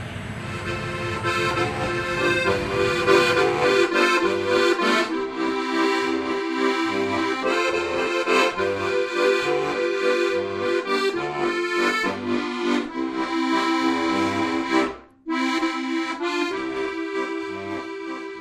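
Diatonic button accordion playing a tune, chords and melody over bass notes on a steady beat. There is a brief break a few seconds before the end.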